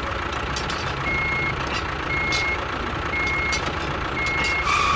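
Vehicle reversing alarm beeping four times, about once a second, each beep a short steady tone, over a steady engine sound underneath.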